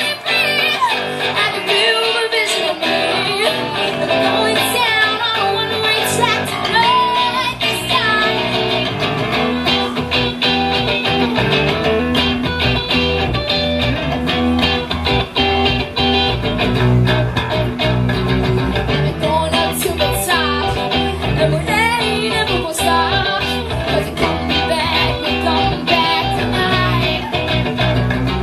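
Live amplified electric guitar and electric bass playing a song together, the bass coming in stronger about ten seconds in.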